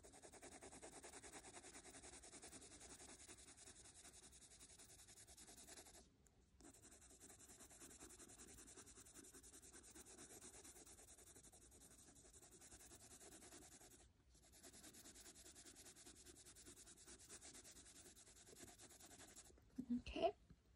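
Faint scratching of a Prismacolor coloured pencil shading on paper in rapid back-and-forth strokes, stopping briefly twice, about six and fourteen seconds in. A short, louder sound comes near the end.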